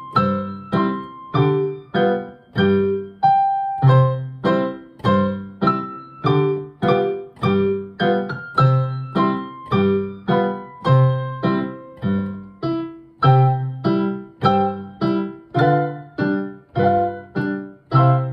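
Piano played as a four-hand duet: a simple melody over a steady accompaniment of low bass notes and chords, the notes struck at an even beat.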